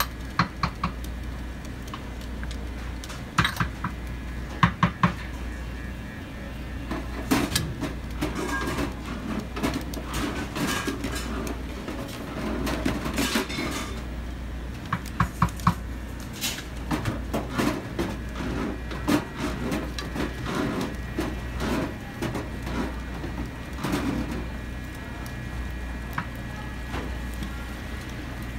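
Wooden chopsticks clicking and scraping against a stainless steel frying pan as pasta and bacon are stirred and tossed in sauce. There are scattered sharp clinks, some in quick clusters, over a steady low kitchen hum.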